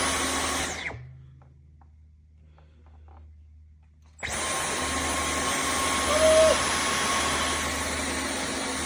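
Dyson V15 Detect Plus cordless stick vacuum running, then let off and winding down a little under a second in. It starts again abruptly about three seconds later and runs steadily with a high whine. A short squeak comes about two seconds after the restart.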